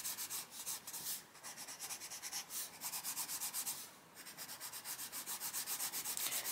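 Black Widow coloured pencil scratching across colouring-book paper in quick back-and-forth strokes, several a second, laying down a light layer of colour. There are short pauses about a second in and about four seconds in.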